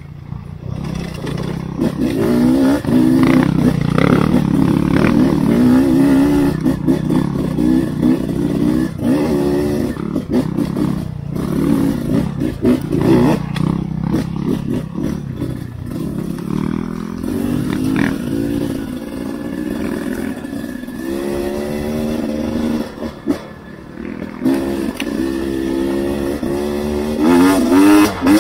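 Beta 300 RR two-stroke enduro motorcycle engine revving up and down again and again while being ridden, with repeated sharp knocks and clatter from the bike over rough ground.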